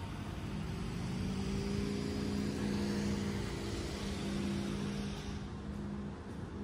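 A steady low motor hum with a rushing noise over it that swells and then falls away about five seconds in.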